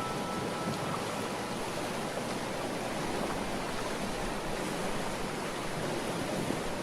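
Steady rushing ambient noise of wind and water, with the ringing of a wind chime dying away about a second in.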